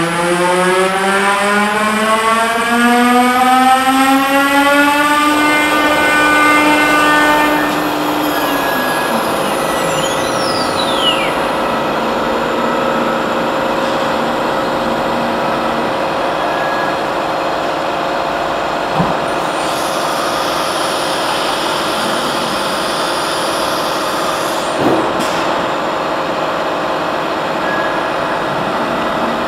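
A CNC router's electric spindle spins up, its whine rising steadily in pitch over about seven seconds and then levelling off. It runs on at a steady speed with a constant whine and hiss. There is a short high falling whistle about ten seconds in and two brief knocks in the second half.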